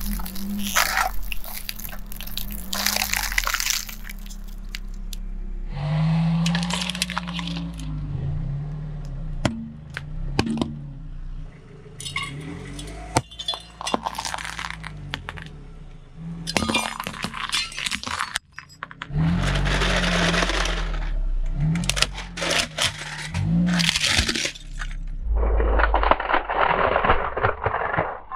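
A car tyre rolling over and crushing brittle plastic objects, stacked plastic bowls and a plastic toy among them, in a run of cracks, crunches and breaking snaps separated by short pauses. The car's engine runs low underneath.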